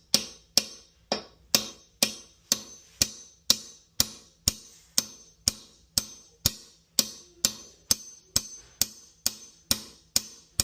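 Hammer striking an awl about twice a second, each blow a sharp tap with a brief metallic ring, driving the awl deeper into a stuck toilet-seat bolt so it can be gripped and turned out.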